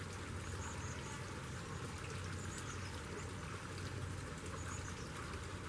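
Steady outdoor background noise, a constant rushing hiss with a low hum beneath it, with a few faint, high bird chirps a second or two apart.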